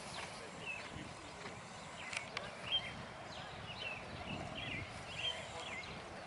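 A horse's hoofbeats clip-clopping on the ground, with many short, high chirps repeating throughout.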